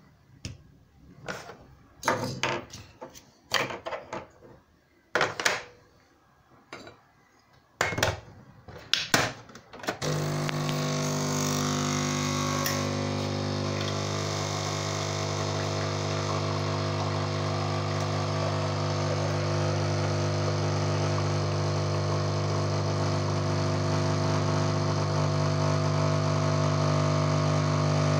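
A few sharp clicks and knocks, then about ten seconds in a Krups Nescafé Dolce Gusto capsule coffee machine's pump starts and runs with a steady hum while it brews coffee into a cup.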